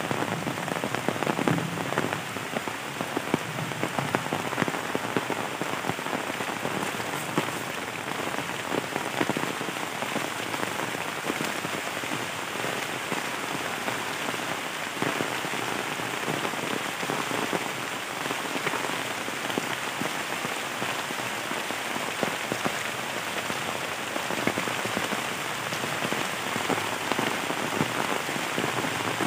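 Heavy rain falling steadily on bamboo and banana leaves and the leaf-littered ground, with many separate drops hitting close by.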